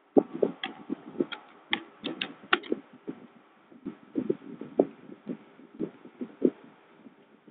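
Irregular soft taps and thumps, several a second, with a few sharper clicks in the first three seconds: handling or tapping noise close to the microphone.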